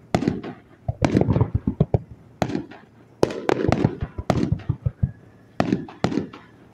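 Fireworks display: aerial shells bursting with sharp bangs in irregular succession, including a quick run of crackling pops about a second in and a denser volley of bangs a little past the middle.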